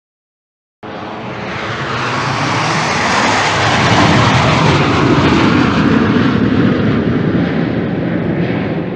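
Canadair CT-114 Tutor jet trainer's single turbojet passing by. It starts abruptly about a second in, is loudest around the middle, then fades toward the end.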